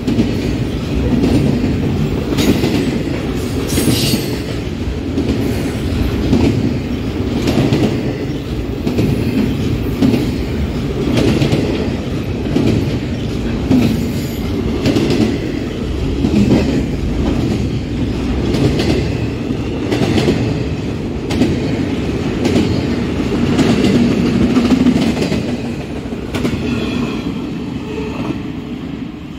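Freight train cars rolling past, the wheels clicking over rail joints in an uneven rhythm over a steady rumble, with a brief high wheel squeal about four seconds in. The sound dies down near the end as the train passes.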